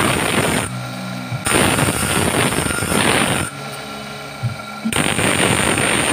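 Bench grinder grinding a rough monel ring blank smooth: a loud grinding noise while the metal is pressed to the wheel, in three passes of one to two seconds, dropping back to the motor's steady hum in between.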